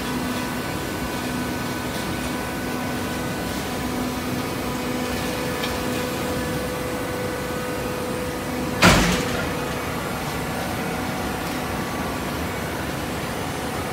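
Hydraulic cardboard baler running, a steady mechanical hum, with one loud thump about nine seconds in.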